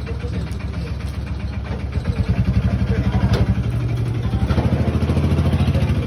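A small vehicle engine idling close by with a fast, even throbbing beat, growing louder about two seconds in and holding there.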